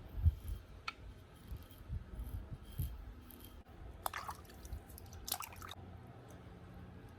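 Two short, crisp scraping strokes of an axe's edge, about a second apart, with soft handling knocks between them.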